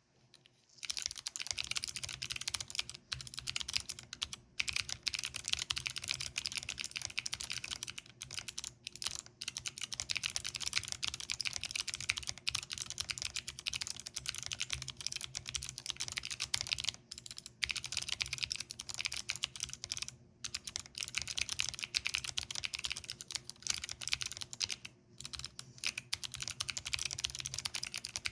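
Fast continuous typing on a custom resin-cased Corne split mechanical keyboard, gasket-mounted and dampened with Kilmat, PE foam and switch pads, fitted with Cherry-profile PBT keycaps. The keystrokes start just under a second in and run in a dense stream, broken by a few short pauses.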